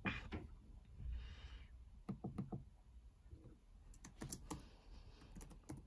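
Laptop keyboard being typed on: scattered keystrokes in small clusters, quiet.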